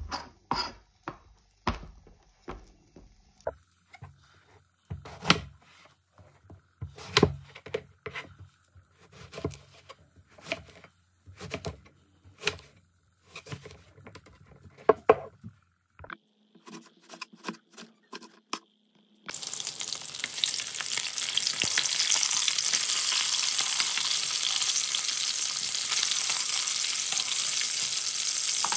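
A knife chopping eggplant on a plastic cutting board, in sharp, irregular cuts. About nineteen seconds in, this gives way to pieces of hilsa fish frying in hot oil, a loud steady sizzle.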